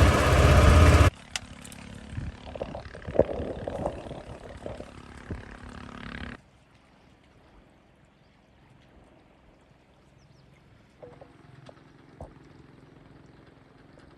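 Motorboat engine running loudly, cut off abruptly about a second in. Quieter scattered knocks and puffs follow for a few seconds, then a much quieter stretch.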